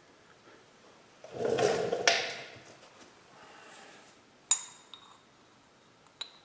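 Metal tools and parts being handled: a brief scrape and rustle with a sharp knock, then a single ringing metal clink about halfway through, followed by a few light ticks.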